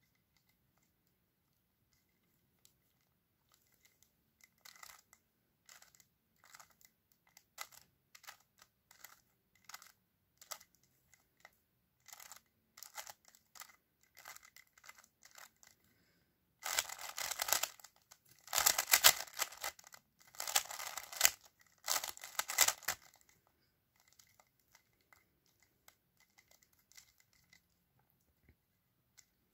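A 3x3 speed cube's plastic layers clicking and clattering as they are turned with finger tricks through PLL algorithms. Separate quick turns at first, then a louder run of fast turning about two thirds of the way through, then a few faint clicks.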